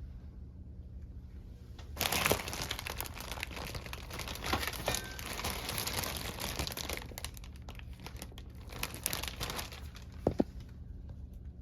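Plastic of a disposable ventilator circuit being handled, crinkling and rustling with many small crackles, starting about two seconds in and dying away near the end. A low steady hum sits underneath.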